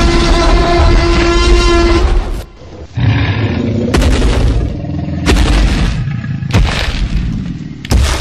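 Loud edited-in sound effects: a steady horn-like roar with several pitched tones lasting about two seconds, then a series of heavy booms roughly every second and a half.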